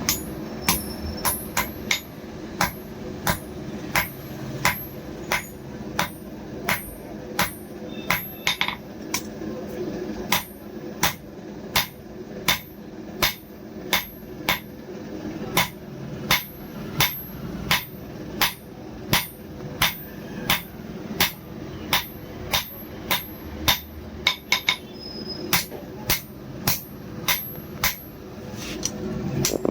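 Hammer blows on an anvil forging a kukri blade from old bearing steel: a steady run of strikes about one and a half a second, each with a short ring, over a steady low hum.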